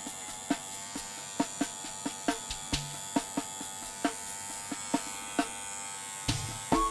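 Electric pet hair clipper running with a steady buzz while shaving the fur on a kitten's paws.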